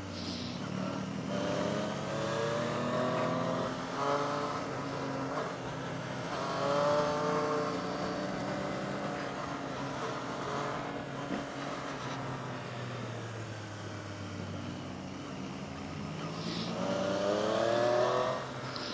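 Motorcycle engine being ridden through a run of bends, rising in pitch as the throttle opens about a second in, about six seconds in and again near the end, and settling back between.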